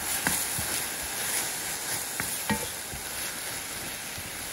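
Curry paste of pureed chili, onion, garlic and ginger sizzling with toasted desiccated coconut in a hot enamelled cast-iron pan as a wooden spoon stirs it. There is a steady frying hiss, with a few knocks and scrapes of the spoon against the pan.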